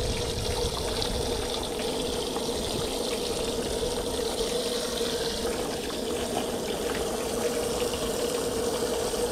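Tap water running steadily, an even rushing hiss with a steady hum under it.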